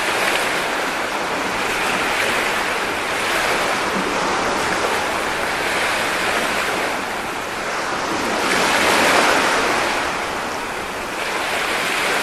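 Sea waves breaking and washing in: a steady rushing that swells and eases every few seconds, loudest about nine seconds in.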